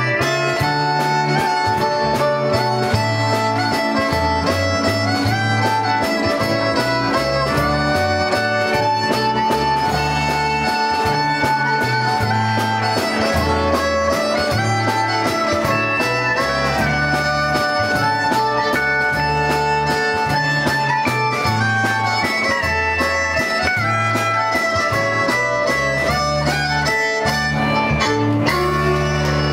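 Live country band playing: a fiddle carries the tune over strummed acoustic guitar, with a bass line stepping between low notes under a steady beat.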